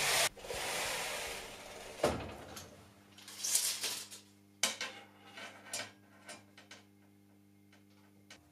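The sliding crosscut table of a homemade table saw rolling along its rails, a fading rush in the first two seconds. Then a steel tape measure is pulled out and laid across the saw table, with scattered sharp clicks and short rattles and a faint steady hum underneath.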